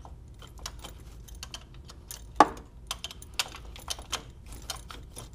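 Irregular light clicks and rattles of a gloved hand squeezing and working the shift-cable retaining clips on the transmission, with one sharper metallic clink about two and a half seconds in.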